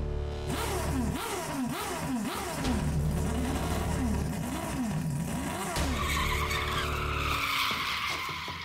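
Car engine sound, revving up and down about twice a second over a steady low rumble, with a tyre screech building from about six seconds in.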